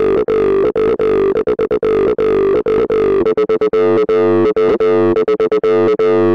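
A TB-303-style acid bassline played on the Vital software synth through a Tube Screamer distortion emulation, with the gain fully up: a fast, busy run of short notes. About three seconds in, the oscillator switches from sawtooth to square wave and the tone changes.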